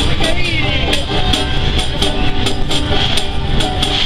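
Upbeat music with a steady jingling, tambourine-like percussion beat, about three strokes a second.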